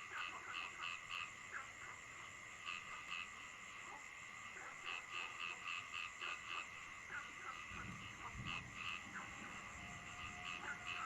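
A night chorus of frogs: runs of short, quick croaks, several a second, over a steady high-pitched drone and a faint background hiss, with a brief low rumble about eight seconds in.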